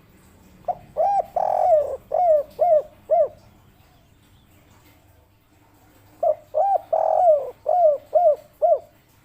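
Spotted dove (tekukur) cooing its song twice. Each phrase is a couple of short coos, one longer drawn-out coo, then three short 'kuk' notes at the end: the 'kuk 3' song type.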